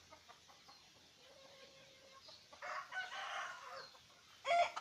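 Rooster crowing: one long call in the middle and a louder one starting near the end.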